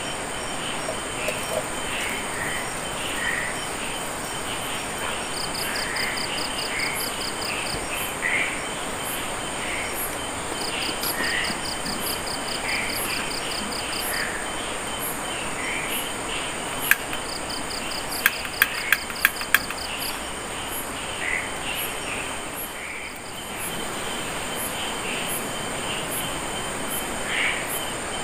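Chorus of insects: a steady high-pitched buzz with a cricket's pulsed chirp trains repeating every few seconds, and other short chirps about once a second. Just past the middle come one sharp click, then a quick run of five sharp clicks, the loudest sounds.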